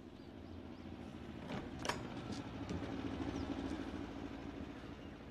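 A front door unlatched and opened: two short clicks about one and a half to two seconds in, over a steady low background hum.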